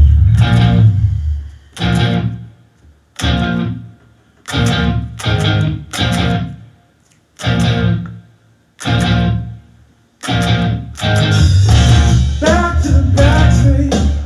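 Band jamming with electric guitar and bass: a stop-start riff of short, sharp hits separated by silent gaps, then continuous playing from about ten seconds in.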